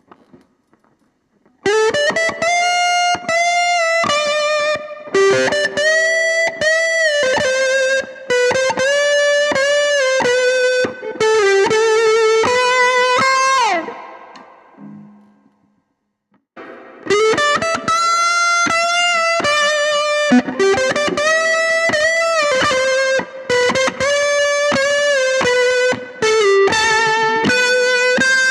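Overdriven electric guitar through an amplifier playing a melodic single-note lead phrase, then the same phrase again after a short pause. Each pass ends with a slide down the neck.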